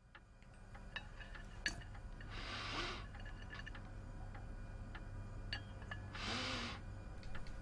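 A man sniffing the air twice through his nose, two long inhales about four seconds apart, checking for perfume. Faint scattered clicks and a low steady hum lie underneath.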